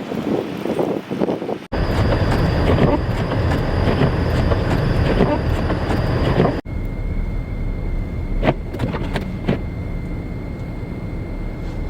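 Blizzard wind and traffic rumble across three edited shots, with sharp cuts about two and seven seconds in. A steady high tone runs through the last shot, with a few sharp clicks.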